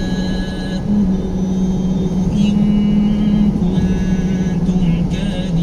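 Quran recitation: a man's voice holding long, drawn-out notes that step up and down in pitch. Under it is the steady road noise of a moving car, heard from inside the cabin.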